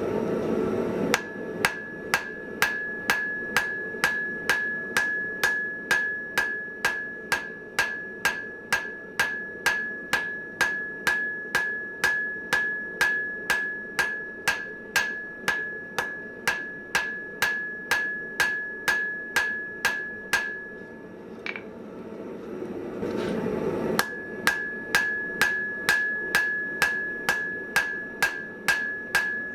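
Hand hammer striking hot mild steel on an anvil in a steady rhythm, about two to three blows a second, each blow with a ringing anvil tone. The hammering breaks off for about three seconds near the end, then picks up again at the same pace.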